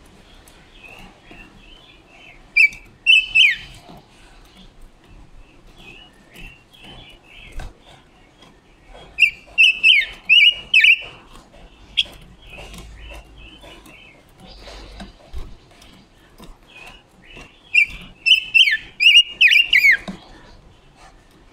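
Caged female silver-eared mesia singing: three loud bursts of quick whistled notes, several falling in pitch, roughly eight seconds apart. Between the bursts come softer chirps and light taps as it hops about the bamboo cage.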